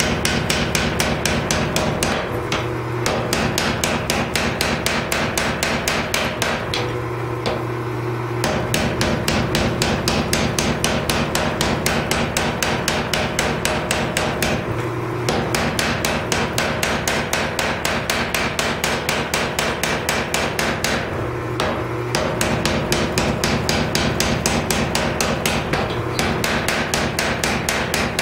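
Power hammer pounding a hot Damascus steel billet: a rapid, even run of heavy metal-on-metal blows, several a second. It stops briefly about five times, leaving only the steady hum of the running machine, then starts again.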